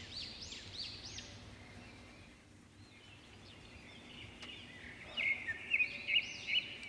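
A small bird chirping over and over: a quick series of rising-and-falling calls about three a second at the start, then a run of louder, sharper chirps near the end.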